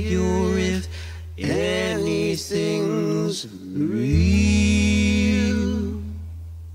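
Live folk song, voices singing with acoustic guitar over a deep sustained bass note. About four seconds in, the voices settle on a long held final note, and the chord rings out and fades away.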